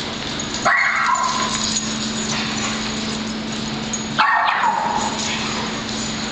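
A dog giving two high yelping barks during play, each sliding down in pitch, about three and a half seconds apart, over a steady low hum.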